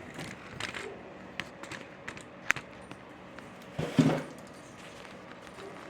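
Handling and rummaging noises: scattered light clicks and taps, with a louder knock about four seconds in.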